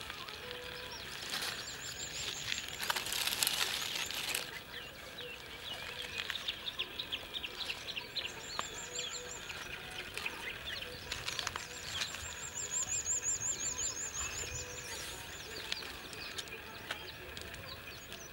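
Scorched banana leaves rustling and crinkling as they are pulled open by hand, loudest in the first few seconds. Birds chirp and trill repeatedly alongside.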